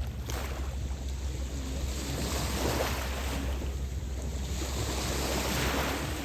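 Small lake waves washing onto a sandy beach, swelling and breaking about three times, with a steady low rumble of wind on the microphone underneath.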